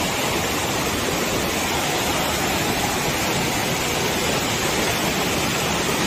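Fast-flowing, muddy stream rushing over rocks: a steady, even rush of water.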